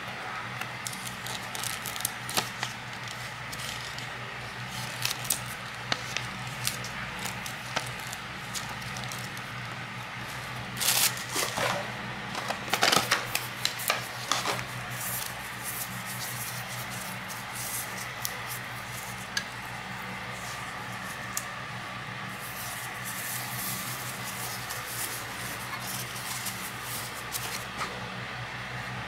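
Rustling and crinkling of plastic and paper packaging with scattered clicks as a small electronic device is unpacked by hand, the loudest crinkling coming about eleven to fifteen seconds in. A steady low hum runs underneath.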